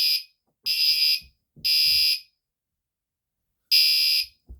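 Gentex Commander 3 fire alarm horn sounding the temporal-three evacuation pattern after the pull station is pulled: three short, loud, high-pitched blasts about a second apart, a pause, then the next group of blasts starting near the end.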